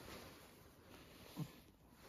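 Near silence: faint room tone, with one brief soft low sound about one and a half seconds in.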